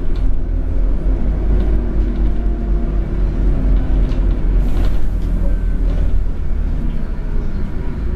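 Scania OmniCity double-decker bus on an N230UD chassis, with a rear-mounted five-cylinder diesel, driving along, heard from inside at the front of the lower deck: a steady low engine drone with scattered light rattles, and a brief hiss about halfway through.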